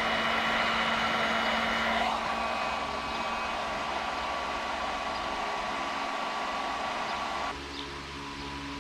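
Handheld hot-air blower running steadily, heating vinyl skin film to soften it so it conforms to the pistol's frame. The blowing sound drops a little about two seconds in and shuts off suddenly about a second before the end.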